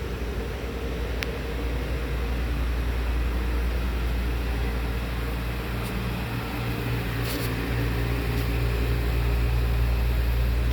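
2015 Kia Optima's 2.4-litre inline four-cylinder engine running at a steady idle.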